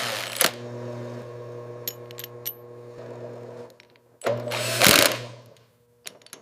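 A machine running with a steady hum, set between two loud bursts of hissing noise: one at the start and one about four seconds in.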